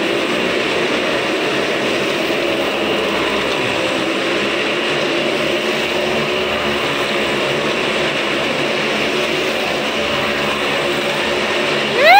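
Several motorcycles circling the wooden wall of a wall-of-death drum, their engines running together in a steady drone with wavering pitch. Near the end a loud whistle-like tone rises, holds briefly and falls.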